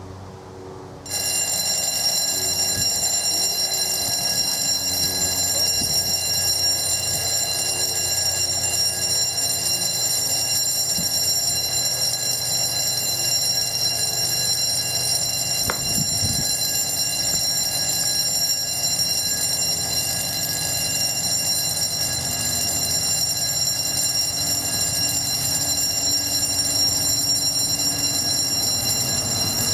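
Level-crossing warning bell starts ringing about a second in and keeps ringing steadily as the crossing closes for an approaching train.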